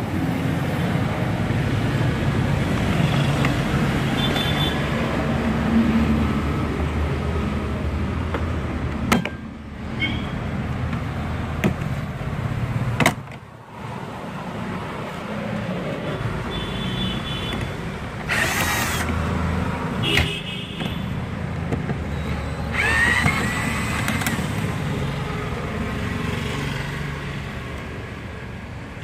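Sharp clicks and snaps of plastic trim clips letting go as the Tata Tiago front door's armrest and window-switch trim is pried off, about four of them, over steady outdoor traffic rumble.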